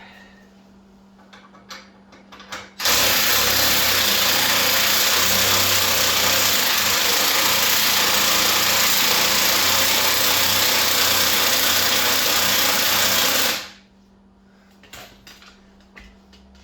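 A powered lift runs steadily for about eleven seconds, starting abruptly a few seconds in and stopping near the end, as it raises the motorcycle's rear wheel and swing arm.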